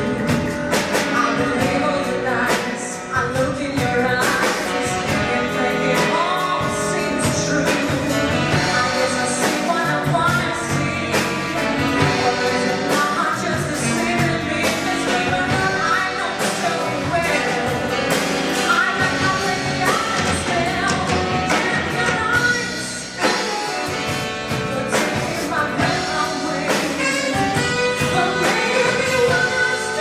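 A woman singing a song into a microphone, backed by a live jazz band with saxophones, piano and keyboards, electric guitar, bass guitar and drums.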